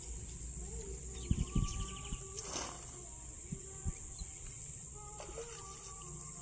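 Outdoor ambience of birds and insects: a steady high hiss, a short rapid trill about a second in, and a few scattered low knocks.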